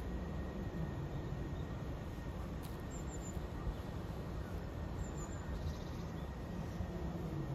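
Steady low outdoor background rumble, with a few faint, short, high-pitched bird chirps about three and five seconds in.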